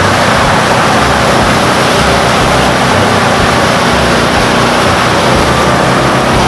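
Off-road vehicle engine running steadily while its tyres ride through shallow floodwater, with a loud, continuous rush of water spray over the engine.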